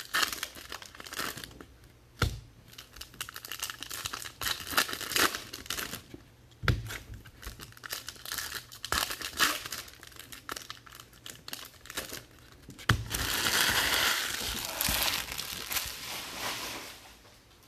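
Trading-card packaging, plastic wrap and foil pack wrappers, being crinkled and torn open: scattered crackles and clicks, then a longer, louder stretch of tearing and crinkling near the end.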